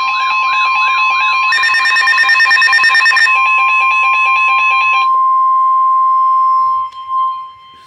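Weather alert radio sounding for a severe thunderstorm warning. The steady NOAA Weather Radio 1050 Hz warning alarm tone plays with a warbling siren over it, then about two seconds of rapid beeping, then the steady tone alone, which cuts off about a second before the end.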